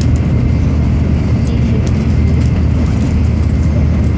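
Steady rumble and hiss inside a passenger train running at high speed, with a few faint ticks over it.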